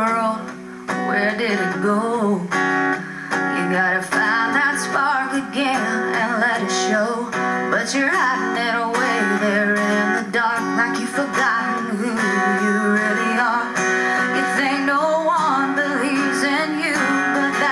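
A woman singing with a strummed acoustic guitar accompaniment, heard through a television's speaker.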